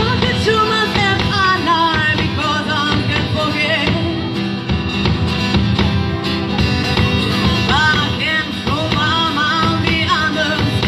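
Live acoustic duo playing: guitar accompaniment with a wavering, sliding melody line over it.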